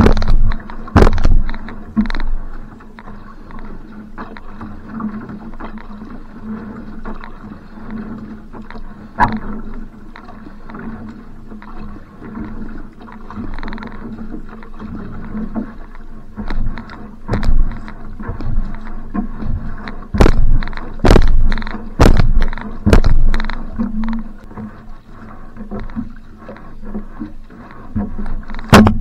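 Outrigger canoe paddle strokes: the blade catching and pulling through the water, with water washing along the hull. Softer strokes through the middle stretch, then from about halfway loud, sharp strokes about once a second.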